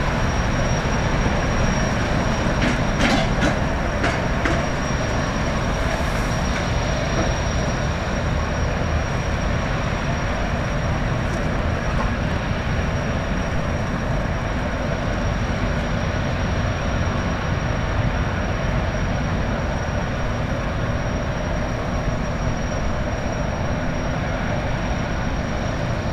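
A high-speed jetfoil under way at low speed: a steady roar from its gas turbines and water jets, with a thin high whine held throughout. A few faint clicks come about three seconds in.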